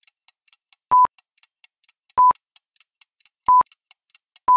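Countdown timer sound effect: short, high single-pitch electronic beeps about once every second and a quarter, with faint regular ticking between them. Near the end a longer beep begins, marking time running out.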